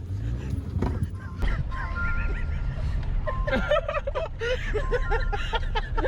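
A car interior's steady low engine and road rumble, joined about three seconds in by music with a quick, chiming melody.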